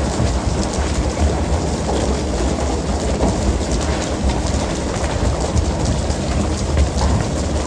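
A fishing vessel's engine running steadily under a constant wash of splashing water along the hull, with light scattered ticks.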